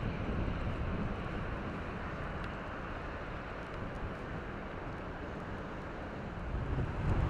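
Steady outdoor background noise with wind rumbling on the microphone, the rumble swelling briefly near the end.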